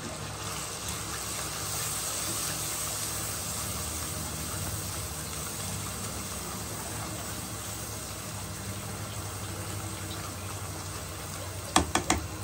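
An onion-tomato masala with ginger-garlic paste and freshly added ground spices sizzles steadily in oil in a non-stick kadai while it is stirred with a silicone spatula. A few quick knocks of the spatula against the pan come near the end.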